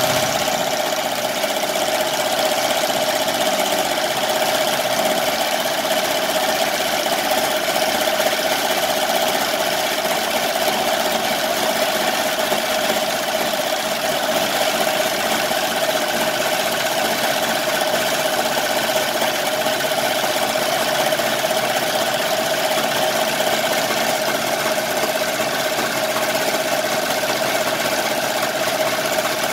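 Multi-needle embroidery machine stitching at speed: a steady mechanical running with a constant whine, unchanging throughout.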